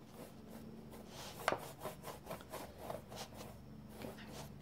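Flat paintbrush rubbing blue paint back and forth on a stretched canvas: faint, scratchy repeated strokes, about two or three a second, with one sharper tick about one and a half seconds in.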